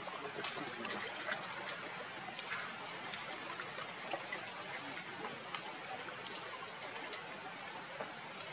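Water trickling and lapping, with many small splashes and drips scattered throughout, as monkeys wade and paddle in a shallow pool.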